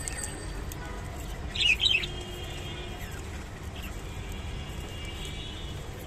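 Budgerigars chirping: one loud, brief burst of chirps about a second and a half in, with fainter short chirps around it, over a steady low background rumble.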